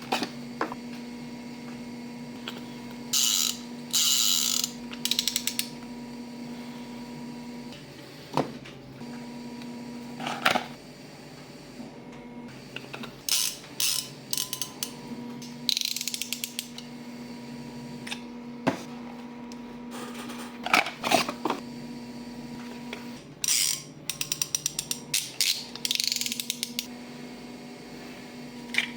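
Spinning fishing reel (Shimano Power Aero 14000 XSC with an aftermarket spool) clicking and ratcheting in several bursts as it is handled and turned, over a steady low hum.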